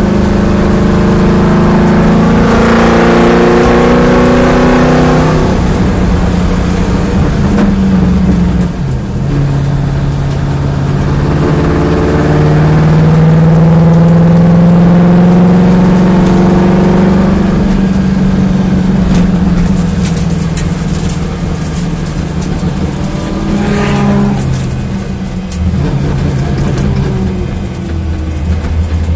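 Corvette engine running with a misfire, revved up twice and held higher for a few seconds each time before dropping back.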